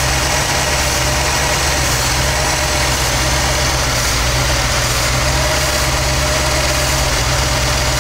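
A machine running steadily at an even pitch, a constant loud drone with no change in speed.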